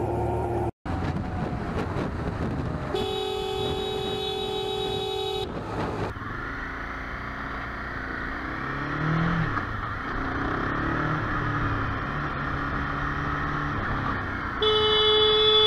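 Motorcycle riding through city traffic, its engine and road and wind noise steady with a brief rev about nine seconds in. A vehicle horn sounds one long steady blast about three seconds in lasting some two and a half seconds, and blasts again near the end.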